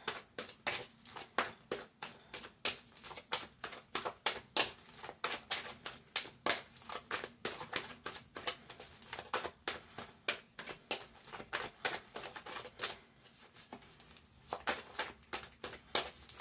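A deck of tarot cards being shuffled by hand: a quick, continuous run of crisp clicks and slaps, several a second, with a brief lull about thirteen seconds in.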